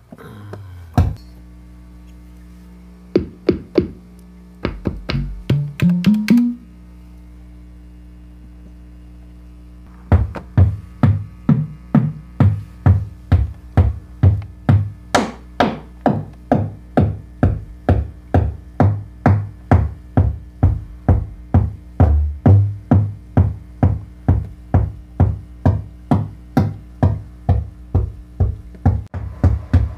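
Make Noise 0-Coast synthesizer patched for percussion, making deep kick- and tom-like hits whose pitch is shaped by an envelope, over a low steady drone. First come a few scattered hits, one of them sliding up in pitch about six seconds in. Then, from about ten seconds in, a steady rhythm of about two hits a second with occasional accents.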